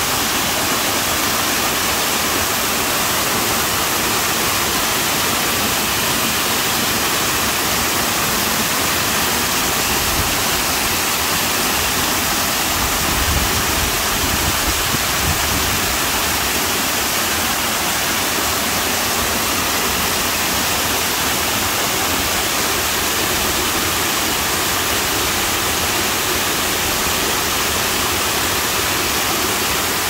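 Artificial waterfall pouring down tiers of man-made rock into a pool: a steady, even rush of falling and splashing water, with a brief low rumble about halfway through.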